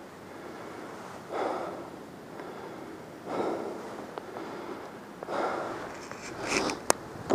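A hunter breathing hard just after shooting a deer, one heavy breath about every two seconds, close to the microphone. There are a couple of sharp clicks near the end.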